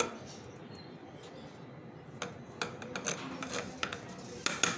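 A small metal container knocking and scraping against a terracotta plant pot and the soil as wet used tea leaves are tipped out of it. The knocks come as a run of short sharp clicks and taps from about two seconds in, bunching up near the end.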